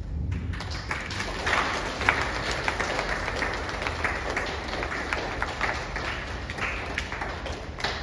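Audience applauding: many hands clapping together, starting just after the opening and stopping sharply near the end.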